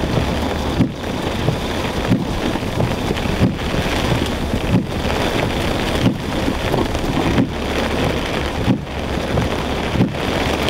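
Heavy rain beating on a car's windshield and roof, heard from inside the cabin, over the low steady hum of the car. The windshield wipers sweep with a regular beat about once every 1.3 seconds.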